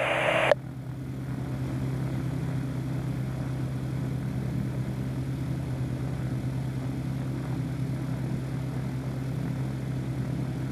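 AutoGyro MTO Sport gyroplane's engine idling steadily on the ground, an even low drone heard from the open cockpit. A loud hiss cuts off sharply about half a second in.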